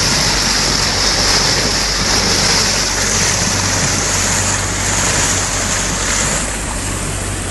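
Boat under way: a steady low engine hum beneath loud rushing water and wind hiss, the hiss easing a little near the end.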